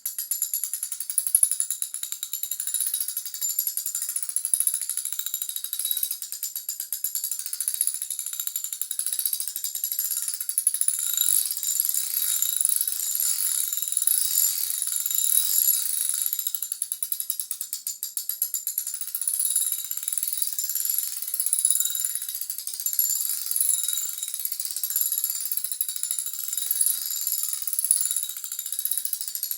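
Ratchet wrench clicking, a fast continuous run of pawl clicks that goes on steadily with small rises and falls in loudness.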